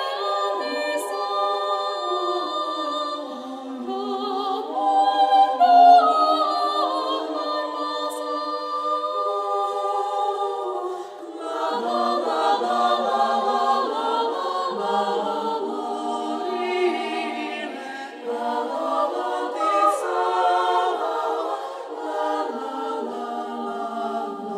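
Women's choir singing a cappella in several parts, with held chords that move from note to note.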